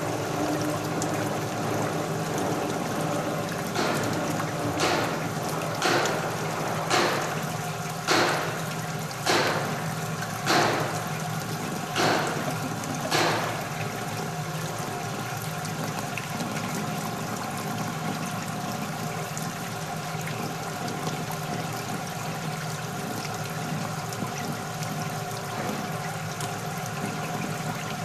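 Kason Vibroscreen vibratory screen separator running with a steady hum while a slurry is poured onto its vibrating screen, the liquid splashing and washing across it. Between about 4 and 13 seconds in comes a run of about nine sharp knocks, roughly one a second.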